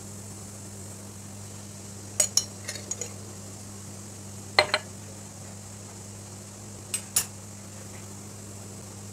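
A metal spoon clinking against a small aluminium frying pan while stirring ground coriander into garlic frying in oil: three short clusters of sharp clinks, about two seconds, four and a half seconds and seven seconds in. A steady low hum runs underneath.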